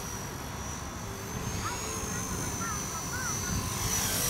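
Electric RC helicopter in flight: a high-pitched whine from its brushless motor and rotor over a steady rush, growing louder near the end.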